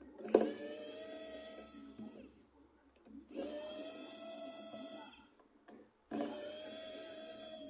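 A small motor whirring in three bursts of about two seconds each, the first starting with a sharp click.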